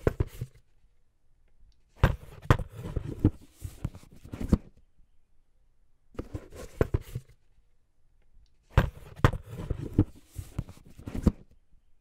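A cardboard product box being handled: knocks, taps and rubbing as it is turned over in the hands and set against the tabletop, in four separate bursts.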